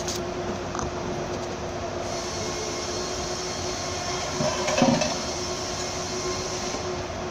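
Steady workshop machine hum with a constant low tone, and a brief clatter a little under five seconds in as the mechanic handles parts.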